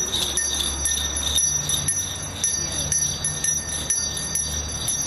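Jingle bells shaken in a steady rhythm, about three shakes a second, with a low steady hum underneath.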